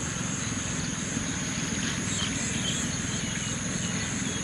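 Outdoor ambience: a chorus of insects trilling steadily in a high, continuous band over a steady low rumble, with a few faint bird chirps about two seconds in.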